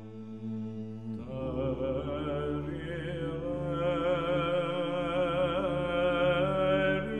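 Orthodox church chant used as an interlude: a slow sung melody with vibrato over a held low drone, swelling about a second in.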